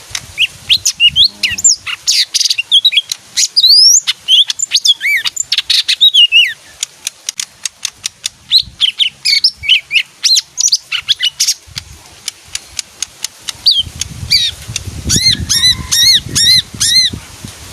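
A pet leafbird singing a fast, varied string of chirps and sliding whistles. Near the end it repeats one arched whistled note about six times in quick succession.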